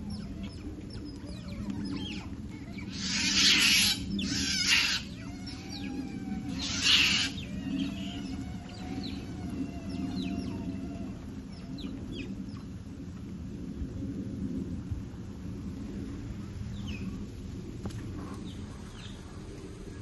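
High-pitched animal calls: many short falling chirps and squeaks, with three loud harsh screeches about three, four and a half, and seven seconds in, over a steady low background hum.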